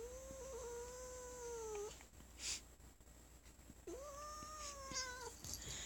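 Domestic cat giving two drawn-out, moaning growls, the first about two seconds long and the second, a little shorter, starting about four seconds in. She is upset and objecting to being petted.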